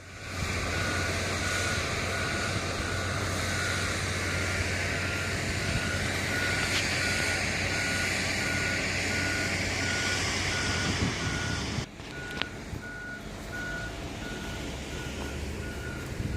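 Backup alarm on construction machinery, beeping at a steady even pace over a diesel engine running; the engine sound drops away about twelve seconds in while the beeping goes on.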